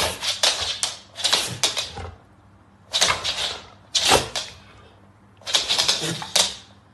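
A small pump spray bottle squirted at a dog's nose, mixed with the dog's snorts. Five short hissing bursts with pauses between them.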